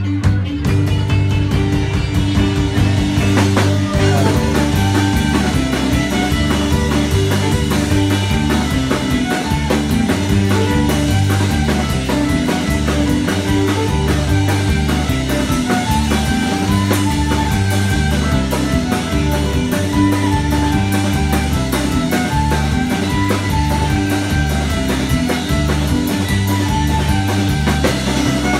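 Celtic punk band playing an instrumental passage live, with no singing: electric guitar, fiddle and tin whistle over a driving drum kit and bass line.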